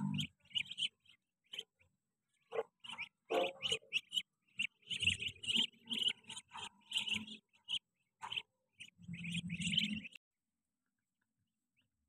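Young Muscovy ducks peeping in short, repeated chirps, many overlapping, that stop abruptly near the end.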